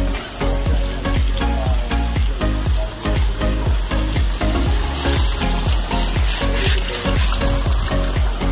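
Garden hose spraying water onto an elephant's hide, a steady hiss, with background music with a steady beat underneath.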